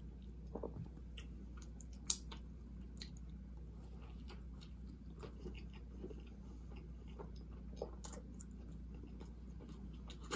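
A person chewing a mouthful of burger, close to the microphone, with soft, scattered mouth clicks. There is one sharper click about two seconds in.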